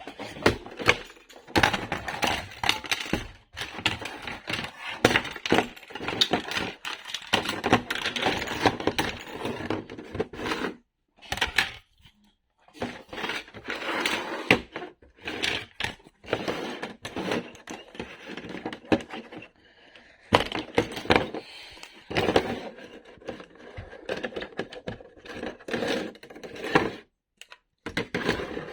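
Pieces of a house-shaped puzzle being pulled apart and set down: dense clicking, knocking and rattling in long bursts, with short pauses about eleven and twenty seconds in.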